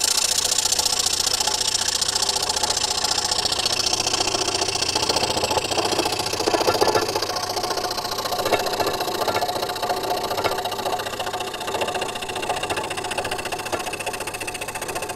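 Scroll saw running, its reciprocating blade cutting through wood with a fast, even rhythm.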